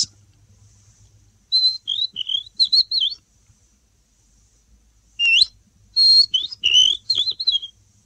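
A human whistled imitation of a common redstart's song: two short phrases of high whistled notes with quick pitch bends, the second starting about five seconds in.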